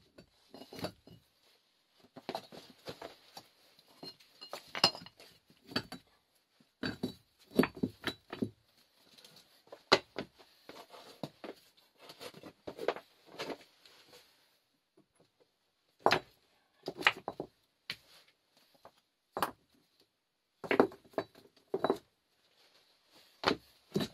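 Irregular clinks and knocks of hard objects being handled and set down, coming in clusters with short pauses between.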